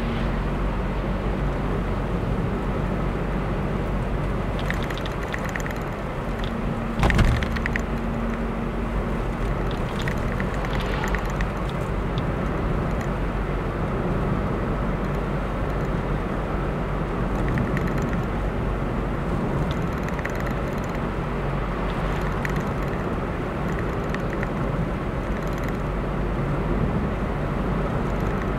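Car driving steadily along a road, with an even rumble of engine and tyre noise. A single sharp thump comes about seven seconds in.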